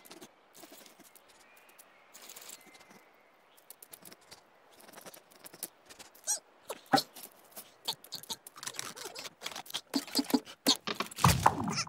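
Cartoon squirrel sound effects: small scrabbling, tapping and scratching noises of a squirrel's feet and an acorn on snow and ice. They are sparse at first, then come thicker and louder toward the end, with a louder burst near the end.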